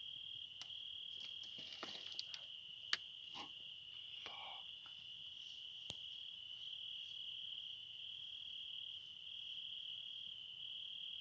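A cricket trilling steadily on one high note. A few faint clicks and rustles sound in the first half, the sharpest about three seconds in.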